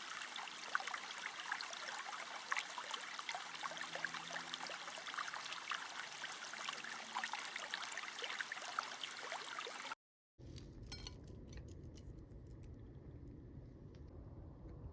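Dense, fine crackling of food sizzling and bubbling in a pan for about ten seconds; then the sound cuts and a low rumble with a few scattered clicks follows.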